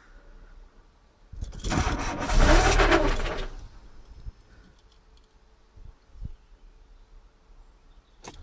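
Renault Mégane cabriolet's engine being cranked by the starter for about two seconds without catching: the car won't start.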